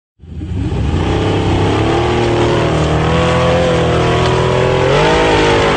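Off-road racing buggy's engine running hard at high revs as it climbs a steep sand hill under load, its pitch rising a little near the end.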